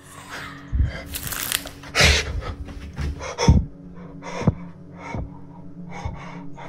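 Close, heavy breathing of the person holding the phone, with rustling and irregular low thumps from the phone being handled while moving.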